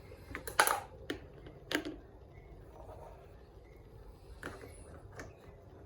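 Small plastic toys being handled: several sharp clicks and taps, the loudest in the first two seconds, with fainter taps near the end.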